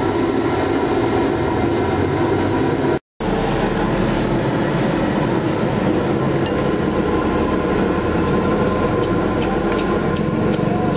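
Steady, loud rumbling background noise with a faint hum, cut off for a moment about three seconds in, with a few faint clinks.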